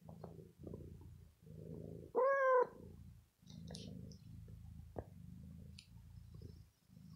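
Domestic cat purring close up, in short stretches with brief breaks between them, while mouthing a fleece sweater. About two seconds in the cat gives one short call that rises and falls in pitch, the loudest sound, and a few faint clicks follow.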